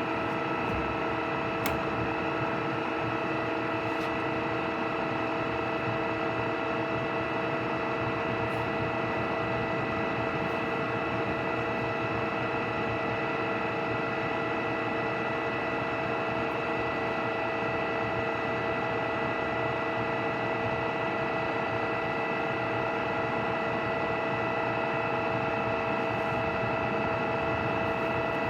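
Oya RE2-1300A radial drilling machine running, its spindle and gearbox giving a steady mechanical whir with several constant whining tones that hold unchanged throughout.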